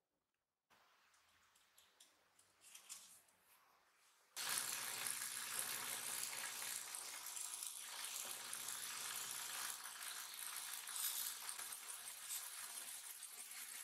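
Near silence for about four seconds, then a steady hissing, rushing noise starts abruptly and runs on evenly.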